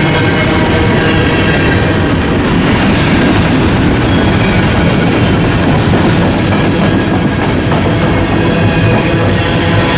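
Freight train rolling past at close range, a steady loud rumble of wheels on rail.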